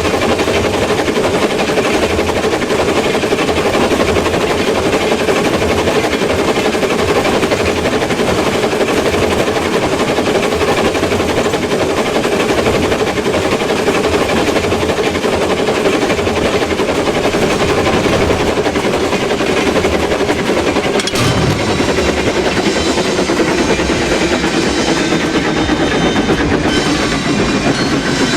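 Train running on the rails: a loud, continuous rapid clatter of wheels over the track with a steady hum. There is a single sharp knock about three-quarters of the way through.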